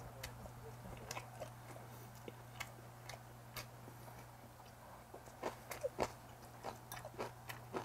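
A person chewing and biting food close to the microphone: soft mouth sounds with scattered small clicks, coming thicker in the last few seconds.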